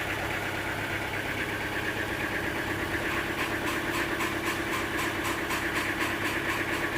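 Sawmill machinery running steadily with an engine-like drone. About halfway through, a fast, even ticking of roughly five clicks a second joins in.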